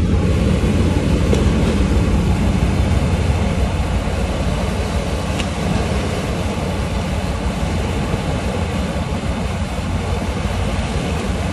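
Steady low rumble and rush of a large pipelay vessel under way as its bow cuts through the sea.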